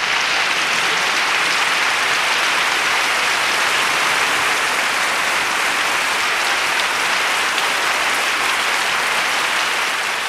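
Dense, steady applause, beginning to fade near the end.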